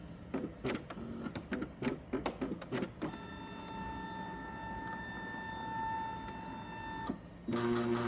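Epson L565 inkjet printer running its power-on initialization. For about three seconds there is a run of irregular mechanical clicks and ticks, then a steady motor whine for about four seconds that cuts off suddenly, and a brief lower hum near the end.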